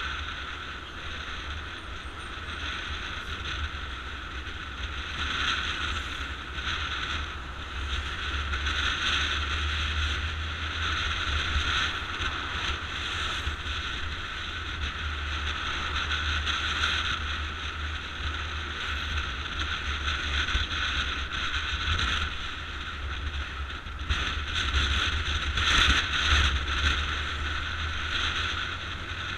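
Motorcycle running along a street while riding, its engine and road noise swelling and easing every few seconds, with wind rumbling on the microphone.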